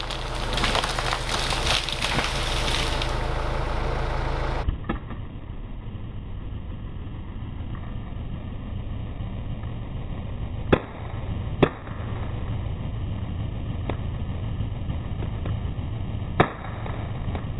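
Loud crackling and crashing, like branches breaking as felled trees come down, for the first few seconds. After a cut, a steady low engine-like hum with a few sharp single cracks spaced seconds apart.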